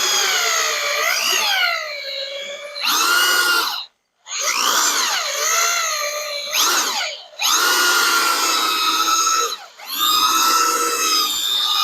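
Corded drill spinning a hole saw through a rubber motor cradle bushing, the motor's whine sagging and rising in pitch as the saw bites and binds in the rubber. It runs in several stretches, stopping briefly about four seconds in and again about seven seconds in, with a dip near ten seconds.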